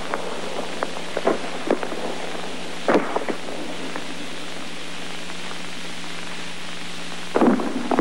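Popcorn kernels popping in a pan: scattered single pops in the first few seconds, then a quick cluster of pops near the end, over a steady hiss and low hum.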